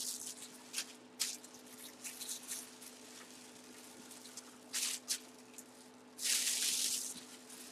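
Hands brushing and rubbing over a full-size football helmet as it is turned about: scattered short rustles and one longer rub about six seconds in, over a steady faint hum.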